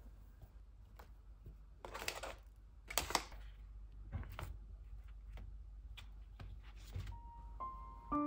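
Paper grocery bag rustling in two short bursts about two and three seconds in as vegetables lying on it are handled, followed by a few soft taps and knocks of produce being moved, over a low steady hum.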